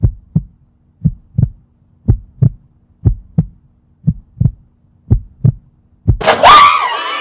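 Heartbeat sound effect: paired low thumps, one double beat about every second, six times over. About six seconds in, a sudden loud burst breaks in with a high, wavering cry.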